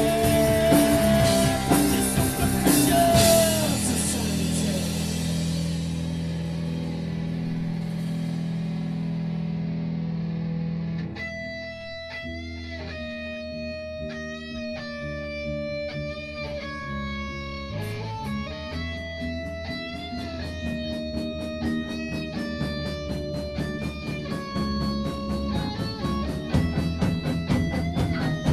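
Rock band playing a song. The full band with drums and crashing cymbals opens it, then a held guitar chord rings out and fades. After that a guitar picks single notes alone, and drums come back in about two-thirds of the way through as the band builds up again near the end.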